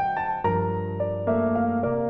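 Background music: a gentle piano tune, with a new note or chord about every half second.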